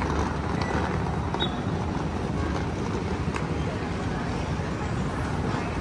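Steady busy-street din: road traffic and passing motorbikes, with a mix of passers-by's voices.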